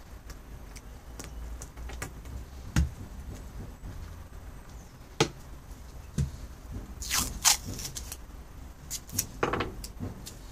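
Masking tape being handled on a workbench: a few light knocks and taps, then short rasping rips of tape being pulled from the roll and pressed down, twice, in the second half.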